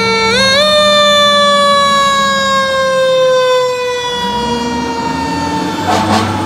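Fire engine siren steps up in pitch about half a second in, then slides slowly down. The truck's engine revs up from about four seconds in as it pulls away, and a short burst of noise comes near the end.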